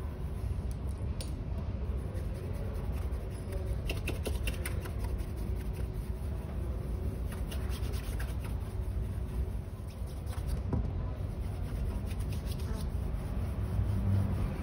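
Cotton polishing cloth wrapped round the fingers rubbing wax polish over a leather dress shoe in quick short strokes, a faint scratchy swish, over a steady low hum. A soft low thump comes near the end.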